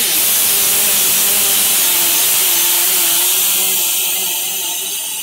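A die grinder with a small abrasive disc grinding steel: a loud, steady, hissing whine as it grinds down the edge of the factory seatbelt tab so the roll-cage rocker bar can clear it. It eases off a little after about four seconds.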